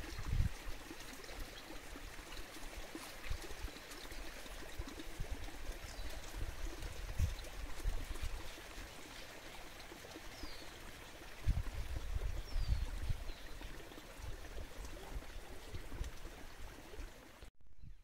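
Steady outdoor rushing noise with low rumbling gusts, strongest about two-thirds of the way through, and a few faint short bird chirps. The sound cuts off abruptly just before the end.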